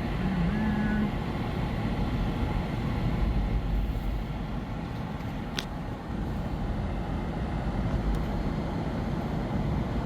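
Car driving along a road, heard from inside the cabin as a steady low rumble of engine and tyre noise. There is a brief tone just under a second in and a single sharp click about five and a half seconds in.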